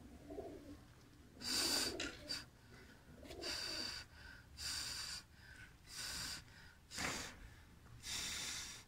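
A person blowing in short puffs, about six of them roughly a second apart, onto a pigeon's freshly dyed wing to dry the wet colour.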